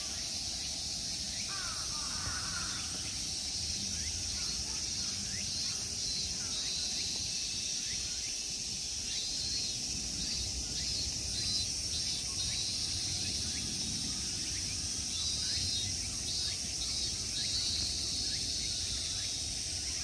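Summer insect chorus: a steady high-pitched buzzing, with a pulsing trill joining in twice in the middle. A few brief bird chirps come near the start, over low background noise.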